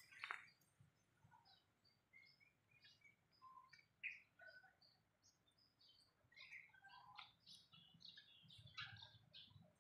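Faint birdsong from several birds: many short chirps and whistles scattered throughout, with a couple of louder notes just after the start and about four seconds in.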